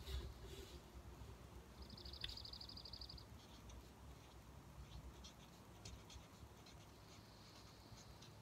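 Near silence: faint scratching of a felt-tip marker writing on paper, with a brief high, rapid trill about two seconds in.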